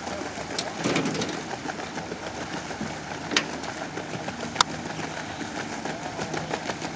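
Outboard boat motor running steadily at low speed, with water churning and splashing around the towed barrel. Sharp knocks come about a second in and twice more in the middle.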